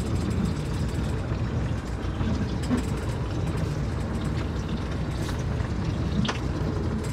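Small fishing boat's engine idling with a steady low rumble, and a light knock near the end.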